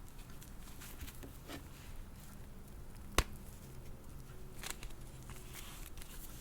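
Faint handling of a plastic fashion doll and its small accessories: soft rustles and light clicks, with one sharp plastic click about halfway through.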